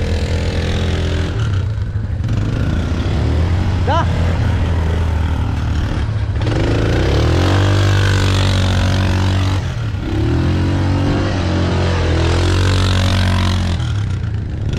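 ATV engine running, revving up and back down twice, around the middle and again near the end, over a steady engine note.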